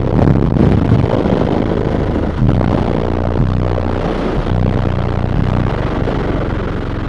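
Car subwoofers playing deep bass very loud, the low notes stepping from one pitch to the next, with the car's body rattling and buzzing along with them.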